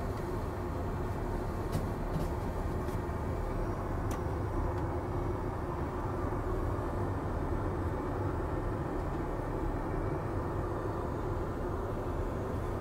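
Steady drone of an airliner's cabin noise heard inside the aircraft lavatory, with a few faint ticks and rustles from toilet paper being unrolled and handled about two to four seconds in.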